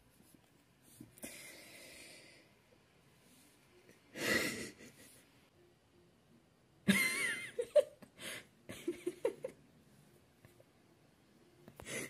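A man laughing breathlessly: heavy breaths, a loud outburst of breath about four seconds in, then a run of short bursts of laughter a few seconds later.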